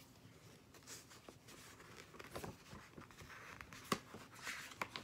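Paper rustling and crinkling as a large picture-book page is turned by hand, with one sharp click about four seconds in, the loudest moment.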